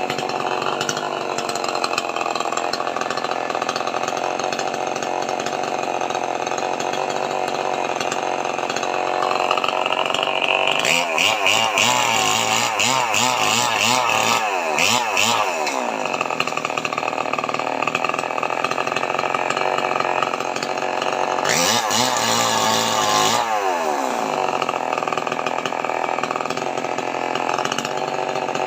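Two-stroke chainsaw running at a steady lower speed, revved up twice to cut into jackfruit wood, about ten seconds in and again after twenty seconds, its pitch wavering under load before dropping back.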